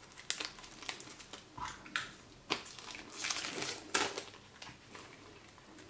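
Clear plastic shrink-wrap being peeled off a small cardboard box and crumpled by hand: irregular crackles and rustles with a few sharper snaps, thinning out near the end.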